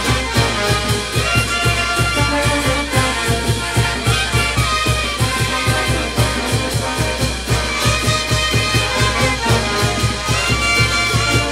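Live brass band playing: sousaphones, trumpets and trombones over a steady drum beat.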